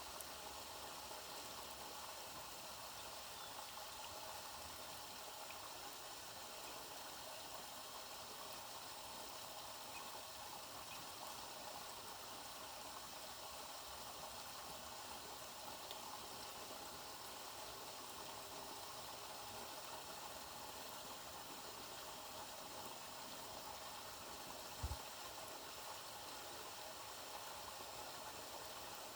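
Steady rain falling, an even hiss throughout, with one brief low thump near the end.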